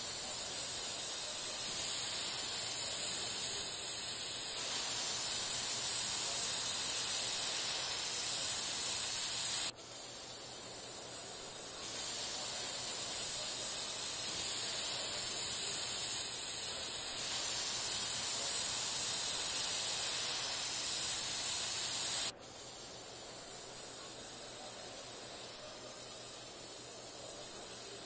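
Steady high hiss of industrial paint robots spraying a car body. The level drops abruptly twice and the hiss carries on more quietly.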